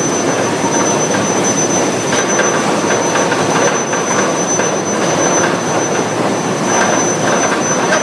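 Loud, steady industrial din from a steel hot-working line with an induction heating furnace, with a thin, high, steady whine over it.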